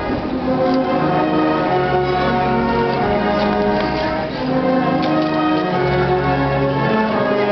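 A marching band playing held chords, with a low bass line moving under the sustained notes.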